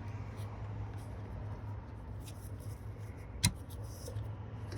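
Small clicks and rustles of hands working a breaker bar on a pickup's serpentine belt tensioner while fitting the belt, with one sharp click about three and a half seconds in, over a low steady hum.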